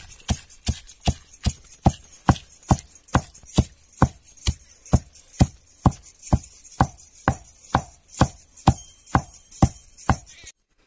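A wooden pestle pounds dried red chillies in a steel pot: steady, even thuds at about two and a half strokes a second. The pounding cuts off just before the end.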